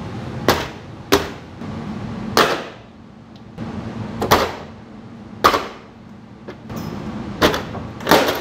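About seven sharp plastic knocks and pops, irregularly spaced, as the top trim panel of a 2017 Jeep Renegade's liftgate is worked loose from its plastic retainer clips.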